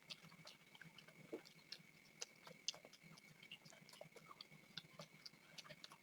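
Faint chewing and mouth smacking of people eating, heard as a scatter of small irregular wet clicks.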